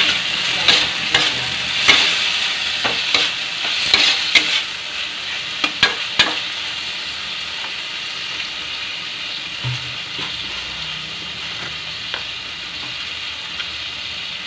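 Chopped tomatoes and onion sizzling in hot oil in a kadhai, with a spatula scraping and knocking against the pan for the first six seconds or so. After that the sizzling goes on alone, a little quieter.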